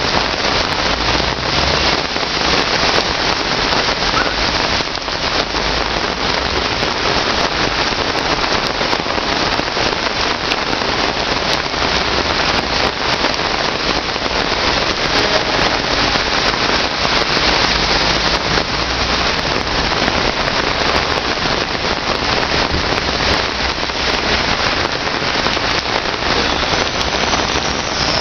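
Heavy rain pouring onto a flooded street: a loud, steady, dense hiss of falling water and splashing drops.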